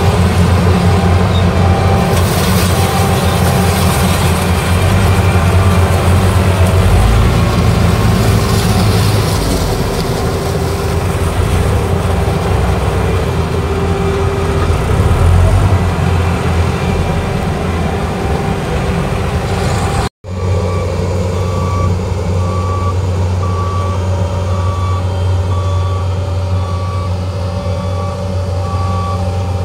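Case IH sugarcane harvester's diesel engine running steadily as it works through cane. After a sudden cut about two-thirds through, the engine runs on under a reversing alarm beeping about once a second.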